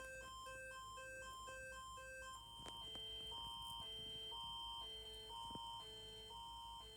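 Electronic emergency-alert tones. A single pitched beep repeats about twice a second, then a little over two seconds in it changes to a simple chime-like melody of short stepping notes over a steady high tone.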